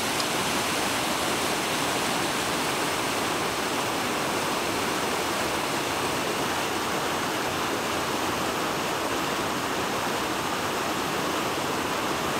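Whitewater rapids of a mountain river rushing steadily, an even wash of water noise with no breaks.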